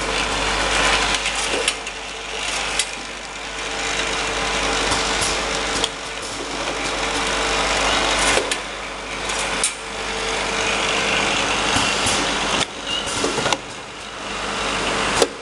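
Automatic sticker-labeling machine running, its bottle conveyor and belt drives giving a steady mechanical whir with a faint hum, broken by a few sharp clicks.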